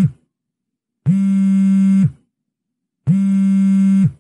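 Mobile phone buzzing for an incoming call: a steady low buzz about a second long, repeating after second-long gaps, two full buzzes plus the end of one as it begins.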